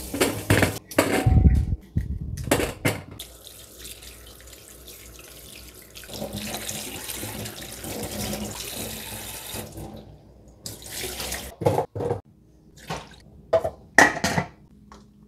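Kitchen tap running into a stainless-steel sink, splashing on a plate while peeled cassava is rinsed by hand. Before it comes the scrape and knock of a knife cutting the cassava. Near the end a metal pot lid clatters a few times.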